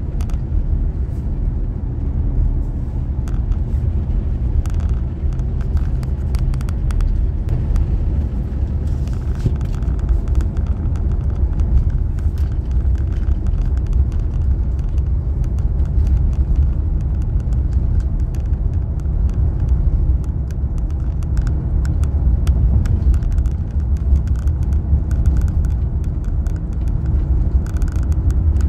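Car driving at road speed, heard from inside the cabin: a steady low rumble of tyres and engine, with scattered light clicks throughout.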